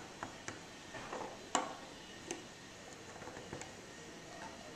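PVC pipe pieces and fittings clicking and knocking against each other and on a wooden tabletop as they are handled and pushed together. A few sharp, separate knocks, the loudest about a second and a half in, with a run of small ticks around three seconds.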